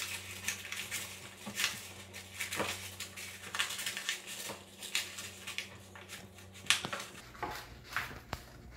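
A sheet of paper rustling as it is rolled by hand into a tube against a tabletop, in irregular short crackles.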